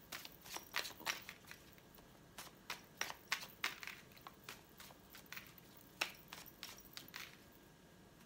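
A deck of fortune-telling cards being shuffled by hand: a run of soft, irregular clicks and slaps as the cards are pushed through each other.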